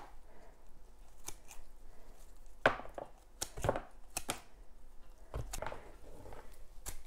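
Hand pruners snipping the small roots off an ashwagandha root ball: a string of irregular sharp clips, roughly a dozen.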